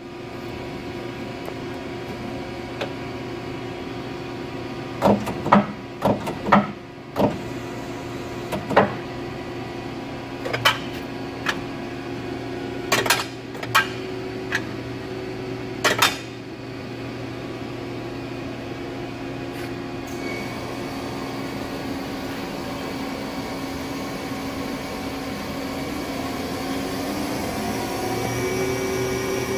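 Mazak QT 8 CNC lathe running with a steady hum made of several tones. A string of sharp clanks comes between about 5 and 16 seconds in, and from about 20 seconds a higher whine joins and rises slightly near the end, as the spindle turns.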